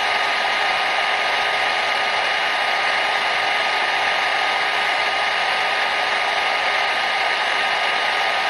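Hair dryer running steadily: an even, unchanging rush of air with a faint, steady motor whine.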